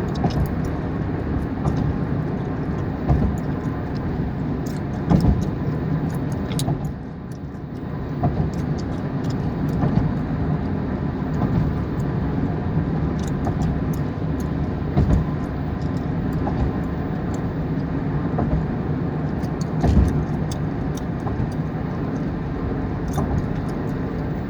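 Gum chewing close to the microphone: irregular wet smacks and sharp clicks over the steady low rumble of a car cabin in slow traffic. The rumble dips briefly about seven seconds in.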